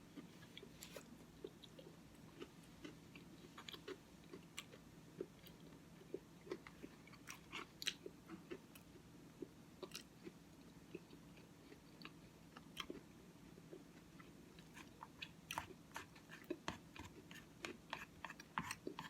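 Faint close-up chewing and mouth clicks of someone eating oatmeal with Cookie Crisp cereal, a scatter of short soft clicks that come quicker and louder near the end.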